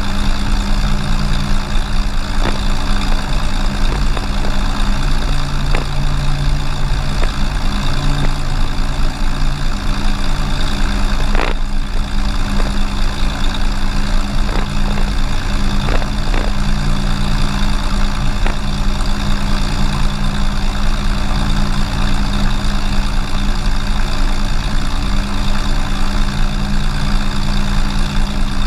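Cessna 182's six-cylinder piston engine and propeller running steadily, heard close up from under the wing.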